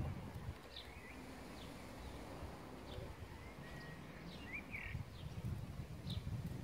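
Garden birds chirping: short high calls repeating about once a second, with a brief warbling phrase about two thirds of the way through, over a low rumble.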